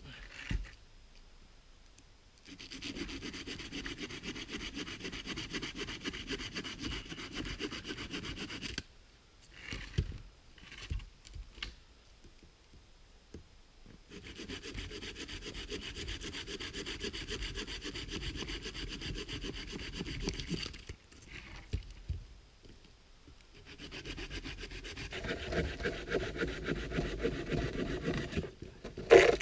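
Hand saw cutting through a dead log in three long spells of steady back-and-forth strokes, with short pauses and a few knocks between them, and a sharp knock right at the end.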